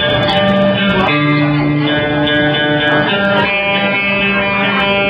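Electric guitar played live, ringing out sustained chords that change about a second in and again after three seconds.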